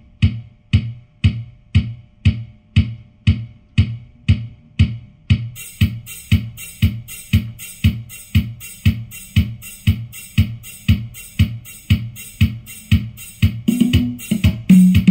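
Electronic music with a drum-machine beat of about two strokes a second, played through a home-built TDA7377 2.1 amplifier into small speakers and a subwoofer in an improvised cardboard box. Hi-hat ticks come in about five seconds in, and a bass line joins near the end.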